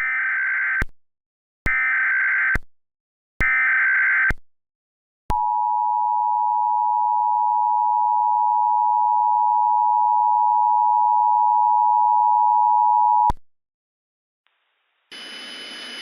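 Emergency Alert System SAME header data sent three times as short warbling screeches, followed by the EAS two-tone attention signal held steady for about eight seconds and cut off abruptly. This is the opening of an EAS alert. A faint static hiss starts near the end.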